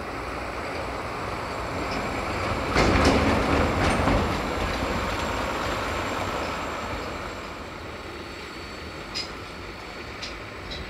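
Heavy vehicle rumbling and clattering, loudest about three seconds in and then slowly fading.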